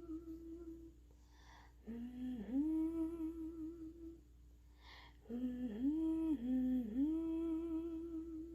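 A voice humming a slow wordless melody: long held notes with short downward dips, in two phrases with a short in-breath before each one.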